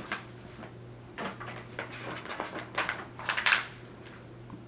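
Pages of a large paperback picture book being turned and handled: several short paper rustles, the loudest about three and a half seconds in, over a faint steady low hum.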